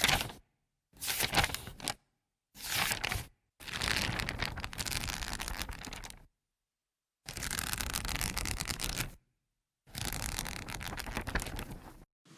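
A series of six separate noisy sound effects, each between about one and three seconds long, each starting sharply and cut off cleanly, with silence between them. The longest runs from about 3.5 to 6 seconds in.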